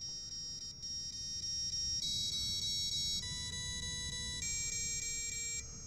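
ESC startup tune played through the brushless motors of an FPV Cinewhoop quad: a run of electronic beep tones that step to a new pitch about once a second. It is not the standard startup sound, and it is the sign that the ESC has fully rebooted after losing power mid-flight.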